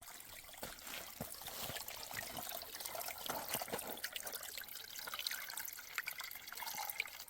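Spring water trickling and splashing steadily from a small pipe, stopping at the end.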